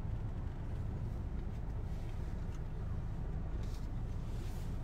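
Steady low rumble of a car on the road, heard from inside the cabin through a phone's microphone.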